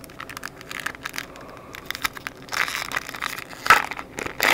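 Hands handling trading cards and a foil card-pack wrapper, with irregular crinkling and light clicks in short bursts. The loudest crinkle comes about three-quarters of the way in.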